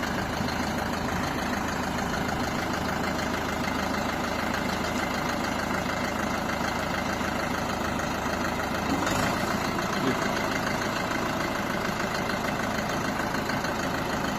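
Four-wheel-drive tractor's diesel engine running steadily at low revs as it creeps backward, with a slight swell in level about nine seconds in.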